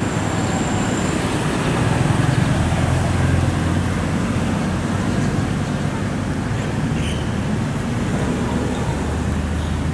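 Steady road traffic noise with a low engine rumble that swells around two to three seconds in.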